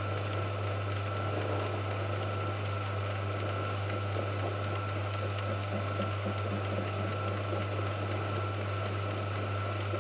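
Small lathe running steadily: a low motor hum with a thin, steady whine above it, the spindle turning while the tool is not cutting.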